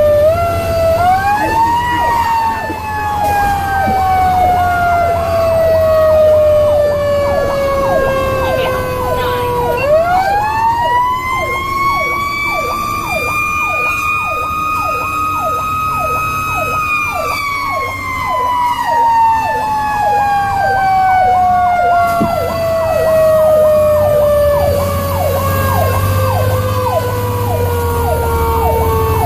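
Fire truck siren heard from inside the cab of a 2002 Pierce Lance rescue truck on an emergency run: a wail that rises, holds and slowly falls twice, with a quicker repeating yelp, about three cycles a second, over it. A steady low engine hum runs beneath.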